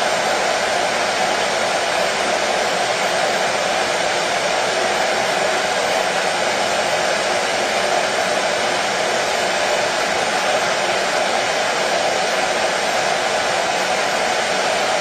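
Hair dryer running steadily: an even, unbroken whoosh of blown air and motor, strongest in the middle of the range, with no change in pitch or loudness.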